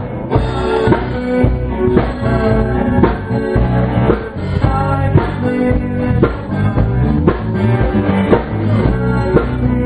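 Small rock band playing live in a room: guitars and a drum kit, with a steady drum beat, played loud.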